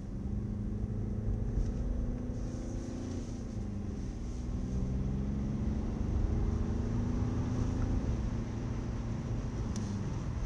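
Car engine and tyre noise heard from inside the cabin while driving, with a low rumble. The engine note climbs, drops about three and a half seconds in, climbs again and drops once more near the end.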